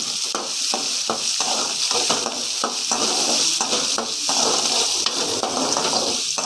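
Chopped onions sizzling as they fry in hot oil in a metal kadai, freshly added to a tempering of browned chana dal and urad dal. A perforated metal ladle stirs them, scraping and clicking against the pan a few times a second.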